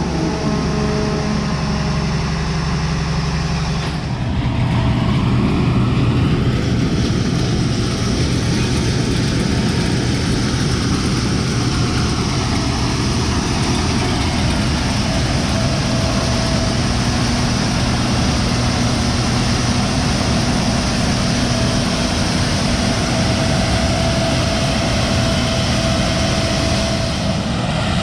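Combine harvester running steadily at working speed. About four seconds in the sound shifts abruptly to a rougher, noisier running that holds steady.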